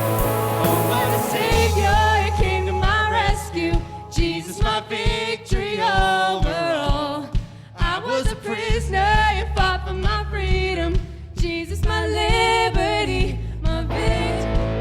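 Christian pop/worship song: a sung vocal melody over sustained bass notes, with a steady drum beat of about two hits a second through the middle.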